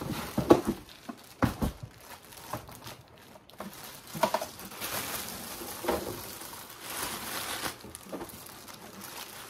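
Clear plastic wrapping bag crinkling and rustling as it is handled and pulled off a boxed sewing machine, with a few sharp knocks in the first two seconds as the machine is lifted out of its cardboard box.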